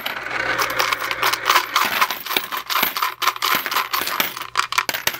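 Coins rattling inside a hollow plastic 1993 Happiness Express Sonic the Hedgehog coin bank as it is shaken hard, spilling out through the bottom hole and clinking onto a pile of coins on the table. It is a dense, continuous run of metallic clinks.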